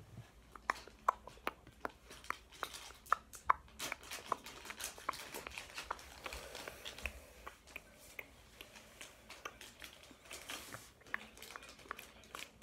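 Faint irregular clicks and soft rustles: small handling and fidgeting noises.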